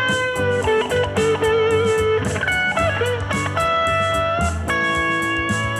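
Stratocaster-style electric guitar playing a blues-rock lead in A major pentatonic, single notes with string bends and vibrato, over a looped rhythm-guitar backing in A Mixolydian.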